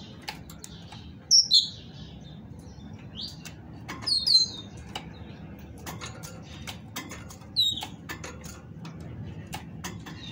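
Female great tit in a wire cage giving short, high, down-slurred call notes, in a pair about a second and a half in, a cluster around four seconds and singly near eight seconds. Between the calls there are frequent sharp clicks and wing flutters as it hops between perch and cage wires.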